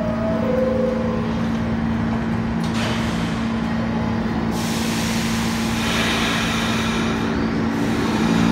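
New York City subway car at a station stop, over its steady electrical hum. A two-tone descending door chime ends about a second in. The doors slide shut, then a long hiss of air follows from about halfway through, as the air brakes release for departure.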